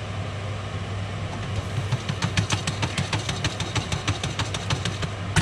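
Popcorn kernels popping in a pot: scattered sharp pops start about a second and a half in, come several a second for a few seconds, then thin out, with one louder pop near the end. Many kernels stay unpopped. A steady low hum runs underneath.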